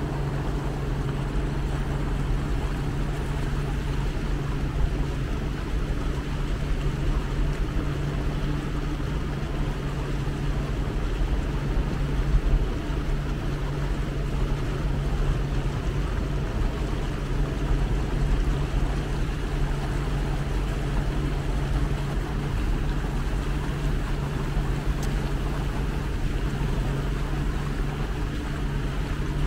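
A small boat's motor running steadily at cruising speed, a constant low hum with the rush of water and wind.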